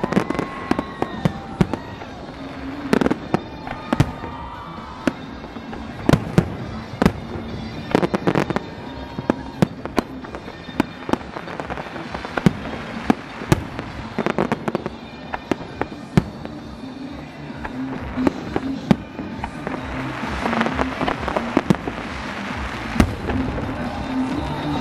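Fireworks display: aerial shells bursting in loud, irregular bangs, one after another, with a dense stretch of crackling about twenty seconds in.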